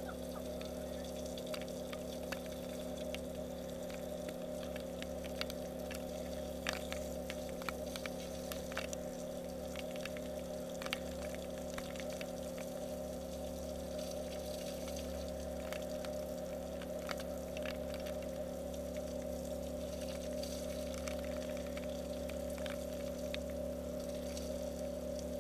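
Outdoor shower water spraying and splashing steadily over a steady hum, with droplets ticking sharply against the camera at irregular moments.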